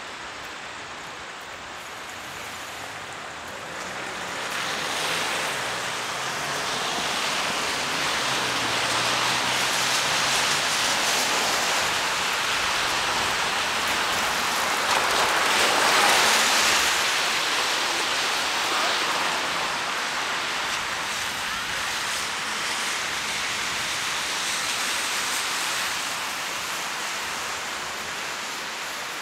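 Heavy rain, a steady hiss that grows louder a few seconds in, peaks about halfway through, then slowly eases.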